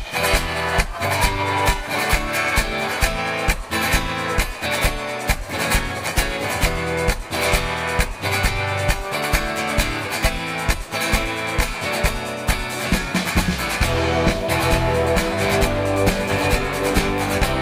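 Live rock band playing an instrumental passage: drums keep a steady beat under guitars and bass. The low end fills out about three-quarters of the way through.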